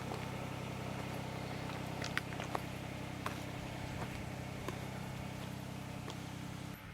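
Kubota BX compact tractor's three-cylinder diesel engine running steadily, with scattered sharp clicks and knocks over it. The engine sound changes abruptly near the end.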